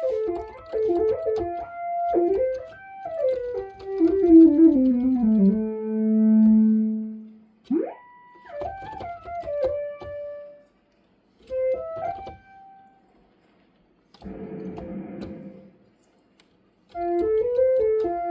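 OSCar monophonic synthesizer played from its keyboard: a falling run of notes, a held low note, a quick upward pitch glide, then more short phrases. A brief burst of hissing noise comes a little before the final phrase.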